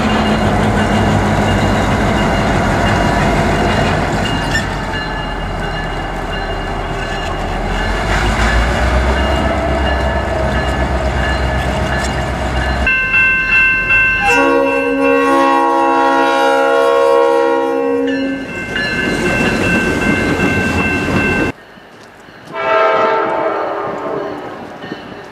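South Shore Freight EMD diesel locomotives, non-turbocharged 16-cylinder two-stroke engines, passing close by with a heavy engine rumble and wheel noise on the rails. A locomotive then sounds its multi-chime air horn in one long blast of about four seconds, with a grade-crossing bell ringing. Near the end a shorter, more distant horn blast comes from an approaching train.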